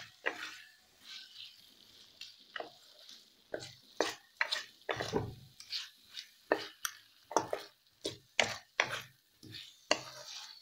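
Spatula stirring and scraping a thick masala of fried potatoes and peas around a kadai, in irregular strokes about once or twice a second, over a light sizzle as the masala is sautéed.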